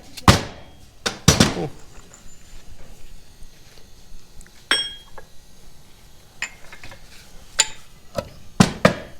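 Sharp metal knocks and clanks, about half a dozen at uneven intervals, some ringing briefly like struck steel, from work on a tractor's PTO assembly.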